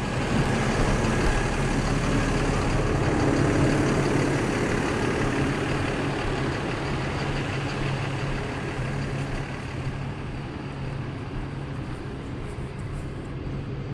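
Yard truck's diesel engine running steadily, a low hum that slowly gets a little quieter.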